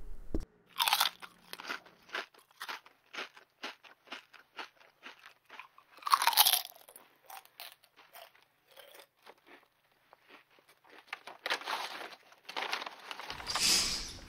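A run of irregular crunching crackles and clicks, with louder crunches about a second in and around six seconds in, and a denser stretch near the end.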